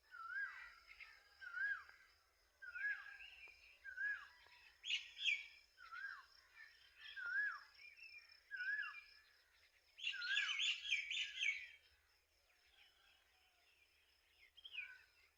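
Birds calling: one bird repeats a short rising-then-falling note about every second and a half, and around ten seconds in another breaks into a quick burst of high chirps. A faint steady high-pitched tone runs underneath.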